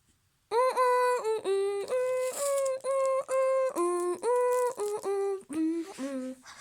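A high voice singing a melody of short, evenly held notes, each at a steady pitch, stepping down to a few lower notes near the end.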